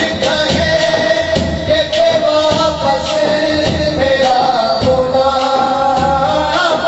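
A man singing an Urdu naat into a microphone through a PA, holding long, gliding notes, over a steady beat of light percussion.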